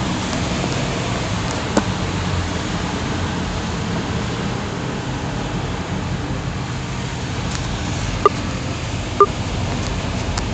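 Steady road noise inside a car driving through heavy rain, with the tyres hissing on the flooded road and the engine running low under it. A few short sharp ticks break through, two of them about a second apart near the end.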